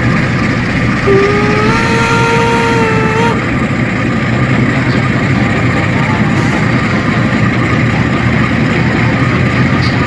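Toy locomotive's electronic horn sounding one blast of about two seconds, starting about a second in, over a steady loud noisy din.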